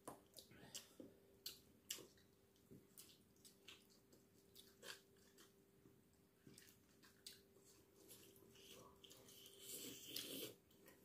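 Faint eating sounds: soft chewing and scattered wet lip smacks from people eating with their fingers, a little louder and busier near the end.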